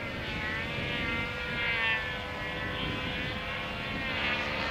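Radio-controlled aerobatic helicopter flying overhead: a steady whine from its drive and rotor, with higher tones wavering up and down in pitch as it manoeuvres.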